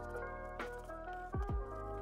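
Background music: an electronic track with held notes over a steady bass, and two quick downward swoops in pitch about a second and a half in.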